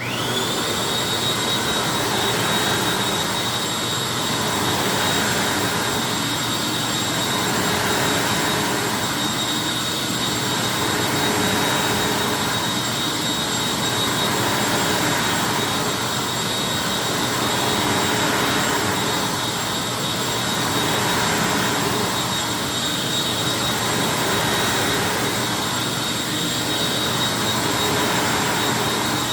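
Hoover WindTunnel upright vacuum cleaner switched on, its motor spinning up in about half a second to a steady high whine and rush of air. It then runs continuously, swelling and easing gently about every three seconds.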